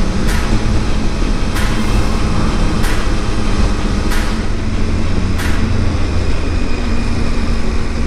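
Motorcycle running at road speed, a steady engine and road rumble. A sharp tick comes about every second and a quarter for the first five and a half seconds or so.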